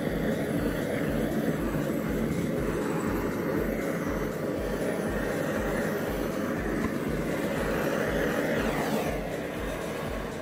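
Handheld kitchen gas torch burning steadily, its flame played over the sides of a metal cake tin to warm it so the set cheesecake releases. The burning noise dies away near the end.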